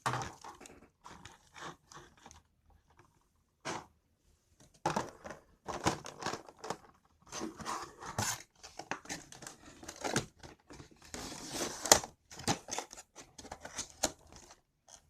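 Packaging being handled and unwrapped around a diecast model airliner: irregular crinkling, rustling and tearing. It is sparse for the first few seconds and almost continuous from about five seconds in.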